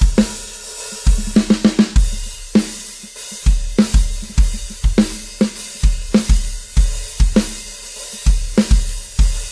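Drum kit being played: kick drum thumps and snare backbeats under cymbals, with quick runs of tom or snare strikes in between.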